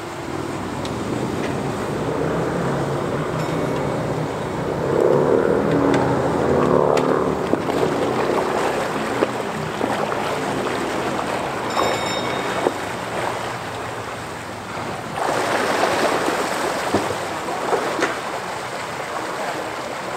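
Steam tug underway at low speed: a rushing wash of water with gusts of wind on the microphone and a few light clicks.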